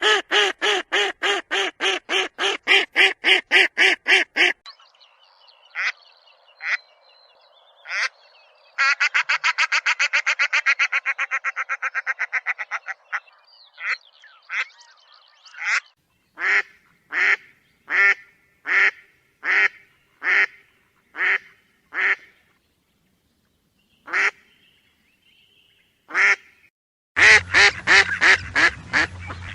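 Ducks quacking: a fast run of quacks at the start, a quicker chattering run in the middle, then single quacks about a second apart, a short lull, and another fast run of quacks near the end.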